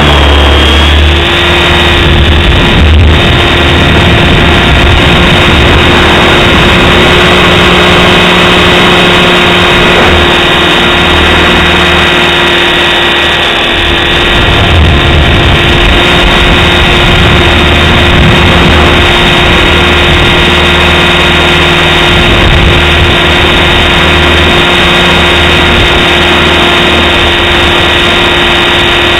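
Align T-Rex 550 electric RC helicopter flying, its rotor held at a steady 2450 rpm headspeed by the governor, giving a continuous whine of unchanging pitch. Gusty wind buffets the microphone with an uneven low rumble.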